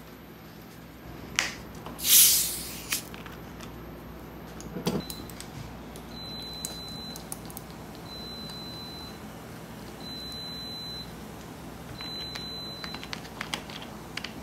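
A short hiss about two seconds in, the loudest sound, then an electronic beeper sounding a single high tone: one brief beep, then four beeps of about a second each, one every two seconds. Light clicks and taps near the end.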